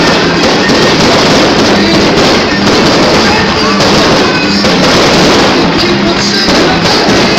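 A fireworks display going off in a dense, continuous crackle and bangs from spark fountains and bursting shells, very loud throughout. Music plays along at the same time.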